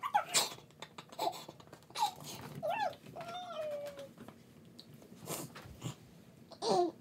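Kitten mewing in several short calls that rise and fall in pitch, with one longer, slowly falling mew about three seconds in. Light taps and scratches come between the calls.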